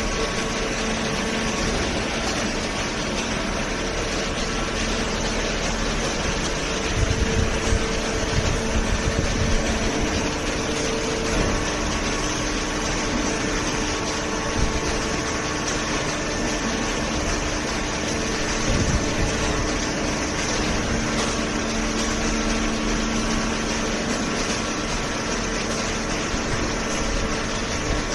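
Machinery running steadily, a constant hum over hiss, with a few low knocks about seven to eleven seconds in.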